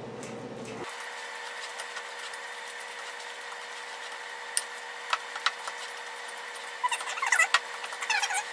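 Ripe bananas being mashed with a utensil in a glass bowl: scattered clicks and taps of the utensil against the glass, a few at first and then a busier run of clicks and scrapes near the end, over a steady background hum.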